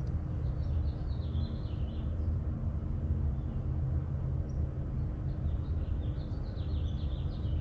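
A small bird singing twice, short runs of quick high twittering notes, over a steady low outdoor rumble.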